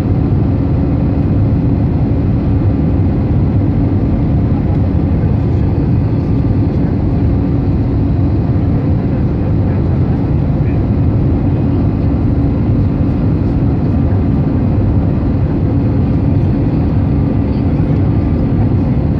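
Airbus A320 cabin noise during the climb after takeoff: the jet engines and airflow make a loud, steady rumble with a constant hum running through it, heard from inside the cabin over the wing.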